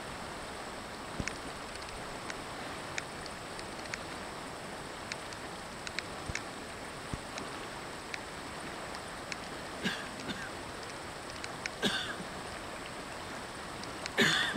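Steady rush of flowing river water, with a person coughing a few times in the second half, the loudest cough near the end.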